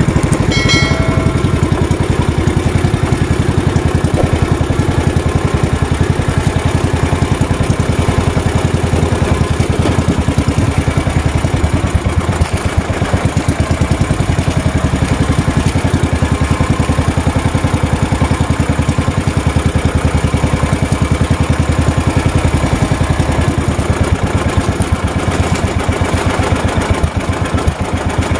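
Small engine of a motorized outrigger fishing boat running steadily under way, with a fast even firing rhythm. A short electronic chime sounds about a second in.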